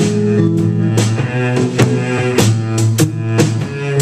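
Live band music in an instrumental passage between sung lines: drums keep a steady beat over held low notes.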